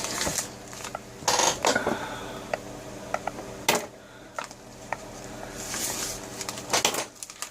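A mail package being handled and opened by hand: scattered taps and clicks with several short bursts of rustling and tearing, over a steady low hum.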